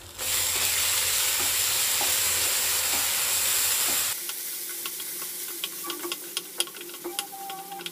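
Onion-and-spice masala sizzling loudly in hot oil in a nonstick frying pan. About four seconds in the sizzle cuts off suddenly, giving way to quieter scraping and clicking of a wooden spatula stirring the thick ketchup-coated mixture against the pan.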